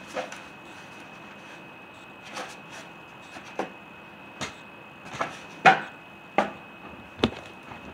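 Inflated latex balloon being knotted and handled: about eight short taps and squeaks of fingers on the rubber, scattered and irregular, the loudest a little past the middle.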